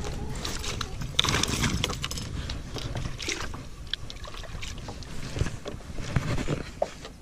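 Low rumbling noise with many scattered small knocks and clicks, typical of handling and wind on a small fishing boat.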